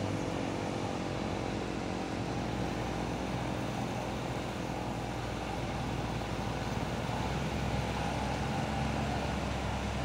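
Heavy truck's diesel engine running with a steady low drone, with road traffic around it.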